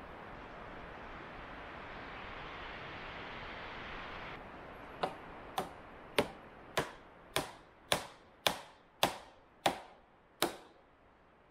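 A steady rushing noise stops suddenly, then a hand tool strikes wood about ten times in a steady rhythm, roughly two blows a second, each a sharp knock.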